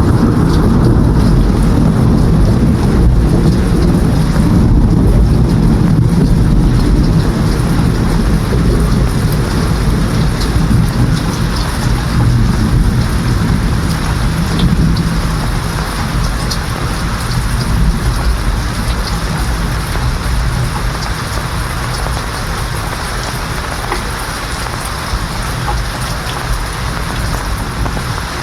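Steady heavy rain with a deep rolling rumble of thunder through the first half that slowly dies away, leaving the rain alone.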